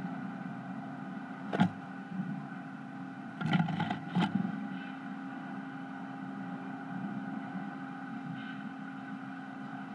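Steady electrical hum with several fixed tones, broken by a sharp knock about a second and a half in and a cluster of knocks and scuffles about three and a half to four seconds in, as the adult great tit shifts in the wooden nest box and flies out through the entrance hole.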